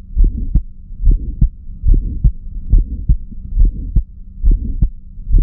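Recorded heart auscultation played back: a regular heartbeat at about 70 beats a minute, each beat a pair of sharp heart sounds with a systolic murmur between them, over a faint steady hum. The first sound carries an ejection click, which can pass for a split first heart sound and comes with stenotic, dysplastic aortic or pulmonary valves.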